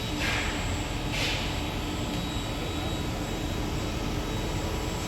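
Mazak CNC machine running steadily with a constant high whine, and two short hissing bursts near the start.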